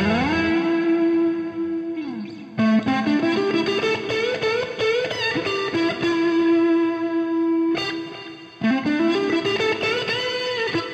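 Instrumental music led by an electric guitar through effects, playing long held notes that slide up and down in pitch. The playing breaks off briefly about two seconds in and again about eight seconds in.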